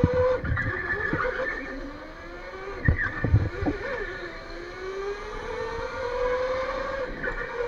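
Electric go-kart motor whine heard from the driver's seat. The pitch falls as the kart slows into a turn and rises again as it accelerates out, with tyres squealing on the concrete floor. Two sharp knocks come about three seconds in.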